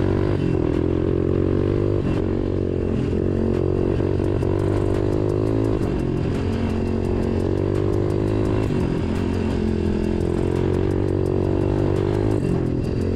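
Dirt bike engine running under a rider on a trail, its pitch rising and falling as the throttle opens and closes.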